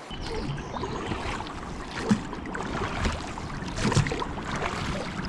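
Moving river water around a small inflatable boat, with wind buffeting the microphone as a low rumble, and two light knocks about two and four seconds in.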